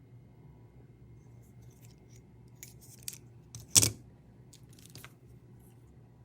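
Small clicks and scrapes of hand tools working on a smartphone during a screen replacement, with one sharper, louder click about four seconds in, over a faint steady hum.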